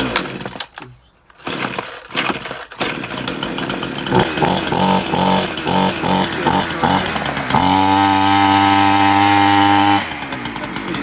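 Titan two-stroke petrol chainsaw pull-started on choke: it catches within the first few seconds and runs unevenly, pulsing about two or three times a second, then is held at a steady high rev for about two and a half seconds before dropping back near the end. The chain is not turning even at these revs, which the owner puts down to a blunt or jammed chain.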